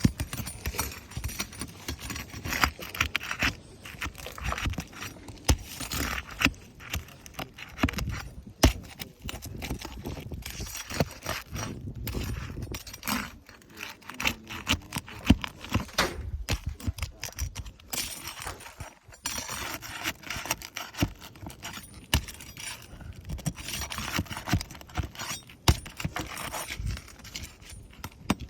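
Irregular scraping, clicking and rattling of hand work on asphalt roof shingles as a wind-damaged shingle is worked loose and lifted.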